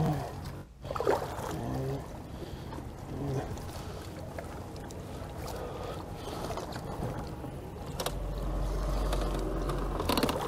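Bass boat on the water: a steady noise bed with a low hum that stops about three seconds in, a short loud burst about a second in, and a low rumble rising from about eight seconds in.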